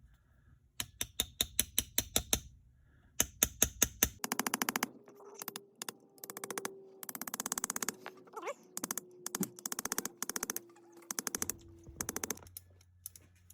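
Small metallic clicks in quick runs from a partly reassembled H&R 676 revolver's action being worked by hand: evenly spaced clicks at first, then faster ratchet-like strings of ticks.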